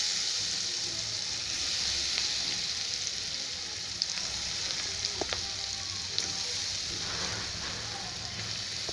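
Potato and onion pakoras deep-frying in hot oil in a kadai: a steady sizzle of bubbling oil around freshly added batter, with a few light clicks partway through.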